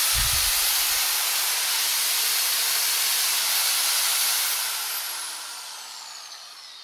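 Metabo W 8-125 Quick angle grinder running at full speed, a steady high whine with a rush of fan air. About four and a half seconds in it is switched off and winds down, its whine falling in pitch. This is the test run after new bearings and fresh grease, and it runs without vibration or extra noises.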